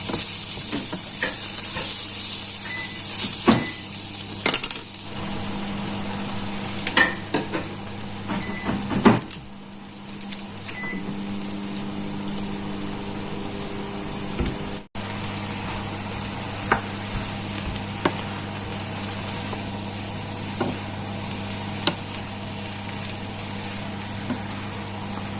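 Food sizzling as it fries in a pan, with scattered clinks of a utensil stirring against the pan. About halfway the sound breaks off abruptly, and after that a low steady hum runs under quieter sizzling and occasional clinks.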